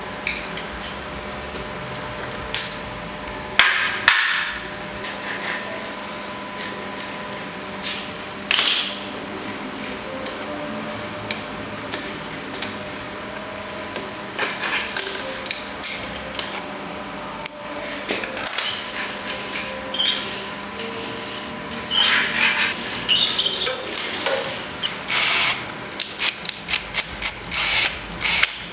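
Hand-work on a PVC pipe and plywood frame: scattered knocks, taps and clicks as wire and a small metal pin are fitted around the pipe, with a faint steady hum underneath. Near the end the knocks come thick and fast in a quick run.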